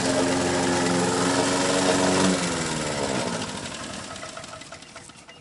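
Walk-behind lawn mower's small engine running steadily, then shut off a little over two seconds in: its pitch falls as it winds down and fades away.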